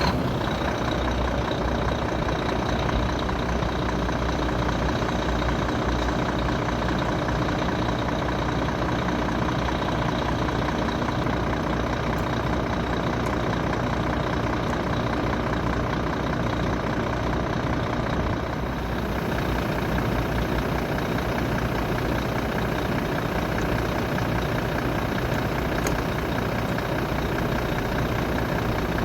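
Dump truck's diesel engine running steadily, heard with the road and cab noise of the truck in motion. About two-thirds of the way through the sound shifts, with more high hiss from then on.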